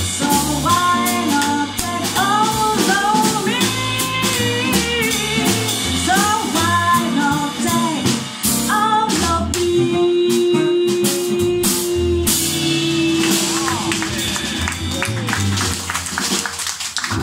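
A woman sings live into a microphone over a band with drum kit, bass and guitar. Her singing stops about halfway through, and the band plays on with a long held note as the song winds down.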